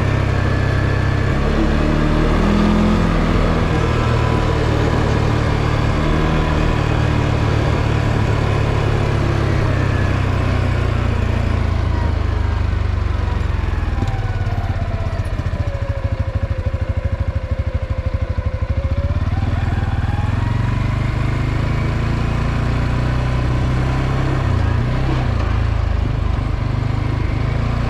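CFMoto ATV engine running steadily under way. Around the middle its whine drops for several seconds, then climbs back up.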